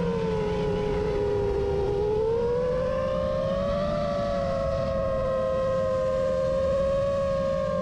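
FPV racing drone's motors whining at a fairly steady pitch that drifts slowly up and down with throttle, over a low rumble of noise.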